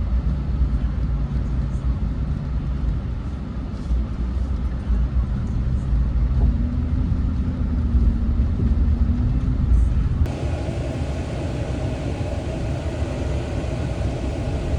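Low, steady rumble of a truck engine and road noise. About ten seconds in it changes abruptly to a brighter, hissier rumble.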